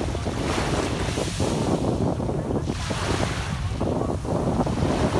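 Sea waves washing in, with the hiss of the surf swelling about every two and a half seconds, and wind buffeting the microphone with a low rumble underneath.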